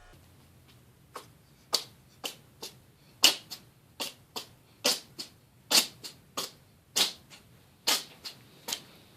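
A pet drinking water, lapping with a run of sharp, wet clicks about two a second, uneven in spacing and loudness.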